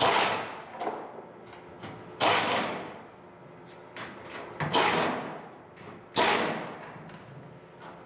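Four loud sudden bangs, roughly two seconds apart, each fading out over about half a second to a second.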